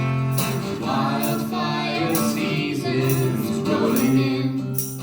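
Live roots band performance: voices singing held notes in harmony over strummed acoustic guitar.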